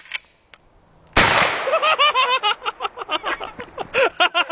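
A single loud gunshot from a firearm about a second in, followed by a person laughing in quick repeated bursts.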